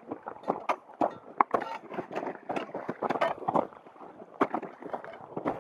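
Hikers' footsteps crunching on glacier ice and snow: a quick, uneven run of sharp crunching steps, a few each second.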